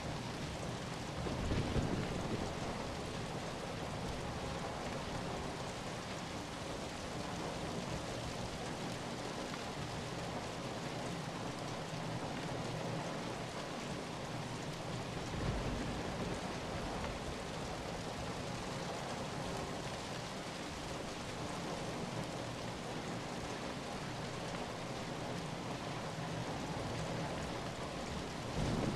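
Steady rain falling, an even hiss of many drops. Brief louder low swells come about two seconds in, midway and near the end.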